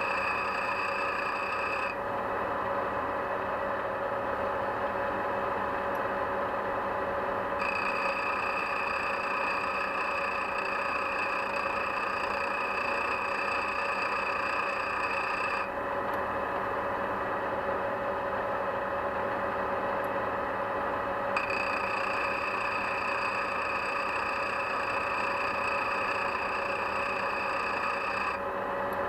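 Motor-driven diamond grinding wheel running steadily while the end of a worn valve stem is faced on it, grinding off the pitted wear left by the rocker arm. A high whine comes and goes three times: at the start, from about 8 to 16 seconds in, and from about 21 to 28 seconds in.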